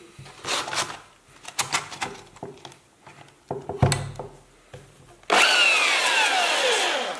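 Hands fitting a sanding belt onto a belt sander: rustling of the abrasive belt and small plastic clicks, with a sharp knock about four seconds in as the tension lever is released. About five seconds in, a loud whoosh begins suddenly and sweeps steadily down in pitch for about two seconds, then cuts off.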